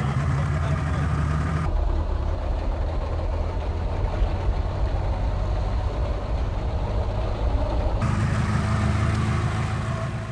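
Boat engine running steadily with a low rumble, the boat underway on open water. The sound changes abruptly twice, a little under 2 seconds in and about 8 seconds in.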